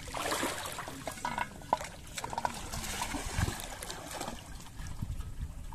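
Shallow water splashing and trickling as a person wades through it and plunges a hand in to grab a floating plastic bottle.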